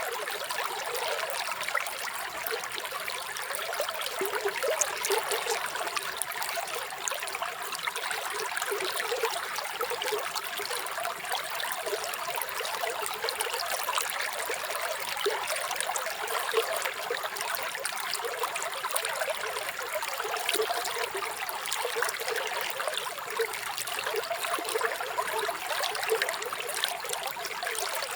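Running water of a stream, trickling steadily with fine splashing and no deep rumble.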